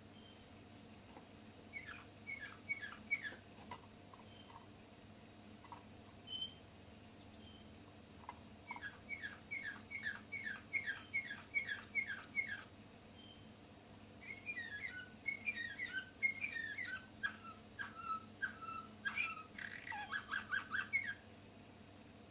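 Caged green canary singing in three bouts of repeated high chirped notes: a short phrase, then a long even run of about three or four notes a second, then a more varied phrase that ends in a rapid trill about a second before the end.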